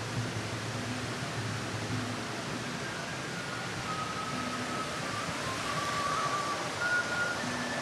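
Steady rushing outdoor noise, with faint background music coming in about three seconds in as a few short held high notes.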